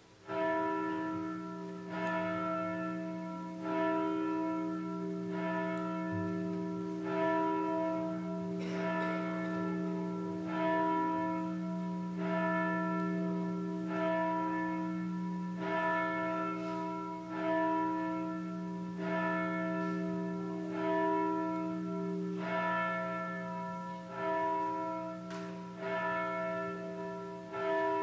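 A single church bell tolling at an even pace, about one stroke every second and a half or so. Each stroke rings on into the next, over a lasting low hum, calling the congregation to worship.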